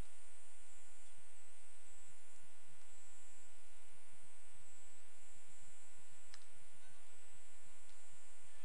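Steady electrical mains hum with its overtones, and a faint click about six seconds in.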